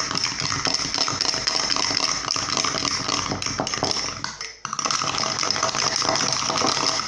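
Slime mixture of glue being stirred hard in a pot: continuous scraping and fine clicking of the stirring utensil against the pot, with a brief pause about four and a half seconds in.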